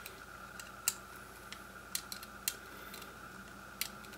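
Small, irregular clicks of a screwdriver turning the M3 corner screws of a piezo sensor module, each given a light half turn to even out the preload, over a faint steady hum.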